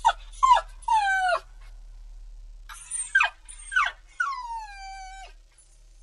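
Pitbull puppy crying: high whining yelps that fall in pitch. Three come close together at the start and three more from about three seconds in, the last drawn out for about a second.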